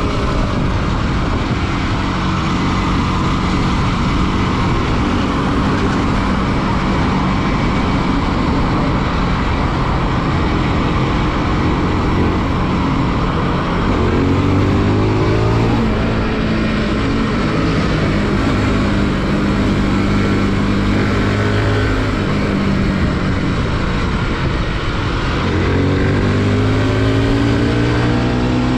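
Bajaj Pulsar NS200's single-cylinder engine running under way while riding, its pitch climbing as it accelerates about halfway through and again near the end, over a steady rush of wind.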